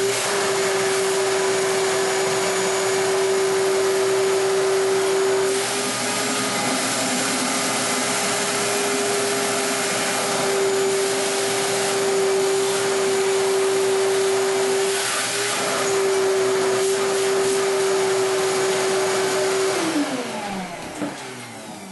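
Shop vac running steadily with a high motor whine and rush of air, sucking leftover water out of the bottom of a drained toilet tank. Near the end it is switched off and the whine falls away as the motor spins down.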